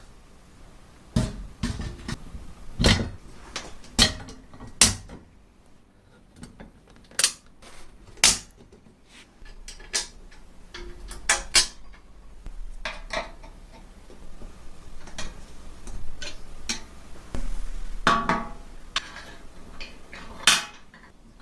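Irregular clinks, clicks and knocks of small metal parts and tools being handled, with a short scraping, rattling stretch near the end.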